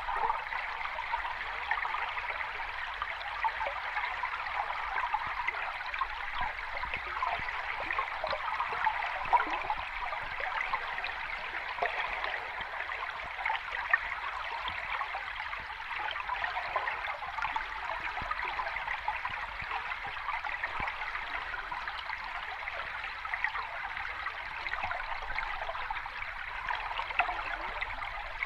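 Small stream of water running and trickling steadily: a constant babble made of many small splashes, brighter than a waterfall's low rush.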